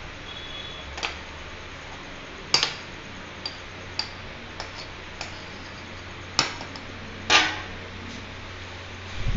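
A metal spoon clinking against the side of a stainless steel saucepan as tea is stirred on the boil: about eight sharp clinks at uneven intervals, over a steady low hiss. A dull low thump comes right at the end.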